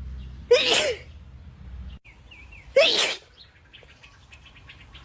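A woman sneezes twice, about two seconds apart, each a short voiced catch of breath breaking into a wet, explosive burst. They are allergy sneezes, with her nose and eyes itching.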